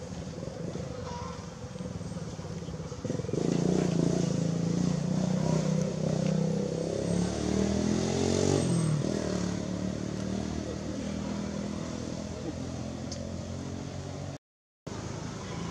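A passing motor vehicle's engine. It grows louder about three seconds in, hums steadily, then drops in pitch and fades after about nine seconds. The sound cuts out briefly near the end.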